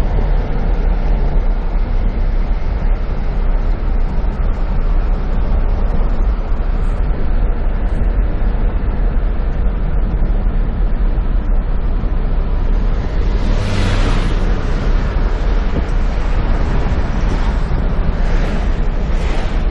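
Car driving, heard from inside the cabin: a steady low engine and road rumble with tyre hiss. A brief louder rush of hiss comes about 14 seconds in and a few shorter ones near the end, as oncoming cars pass.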